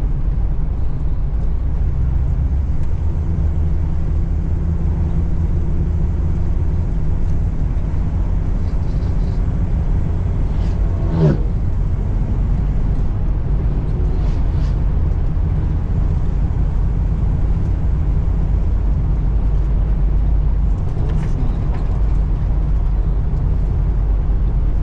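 Steady low road and engine rumble inside the cabin of a moving RV. A brief falling whine a little before the middle.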